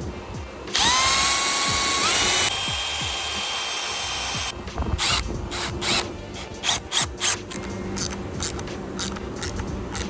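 Power drill spinning up with a rising whine that steps higher about two seconds in, running on for a few seconds, then a quick run of sharp clicks from a ratcheting wire crimper closing on connectors.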